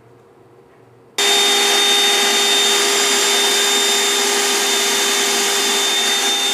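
Black & Decker Dustbuster handheld vacuum switched on suddenly about a second in, then running steadily with a loud, even motor whine.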